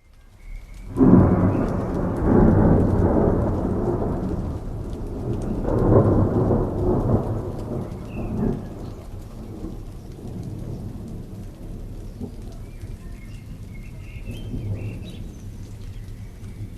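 Thunderstorm: a long rumble of thunder that starts about a second in and swells again a few seconds later, then rolls away, over steady falling rain.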